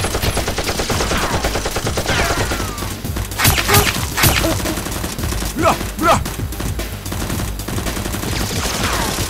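Dubbed-in automatic gunfire sound effects: dense rapid volleys, with a few louder single shots between about three and a half and four and a half seconds in.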